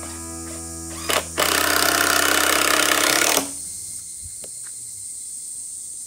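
Cordless impact driver driving a screw into a wooden brace: a brief blip about a second in, then a hammering run of about two seconds that stops suddenly. Background music plays throughout.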